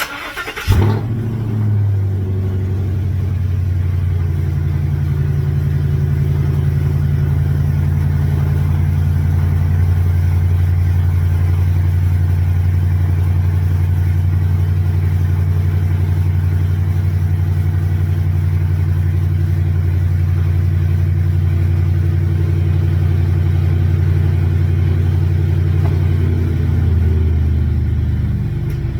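2019 Ford Super Duty pickup running, a loud steady low drone of engine and road that starts abruptly about half a second in and eases slightly near the end.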